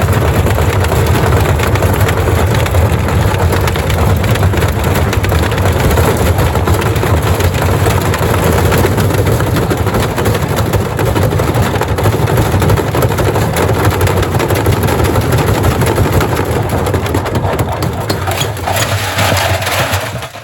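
Gorenje washing machine running with heavy bricks in its drum, a loud, steady mechanical din with a strong low hum. It stops abruptly near the end.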